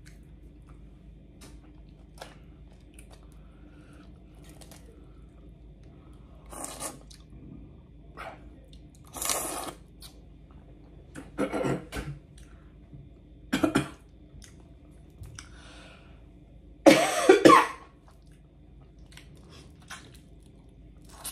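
Boiled crawfish being peeled and eaten close to the microphone: a handful of separate short bursts of shell cracking, sucking and chewing between quiet stretches. The loudest is a short cough about 17 seconds in.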